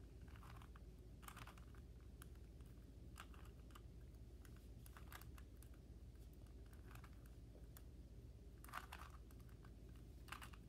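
Rubik's Cube being turned by hand: faint, irregular plastic clicks and clacks as the layers are twisted, with a slightly louder clack near the end.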